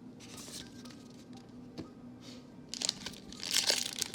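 Faint rustle of trading cards being handled, then loud crinkling of plastic packaging starting about three seconds in.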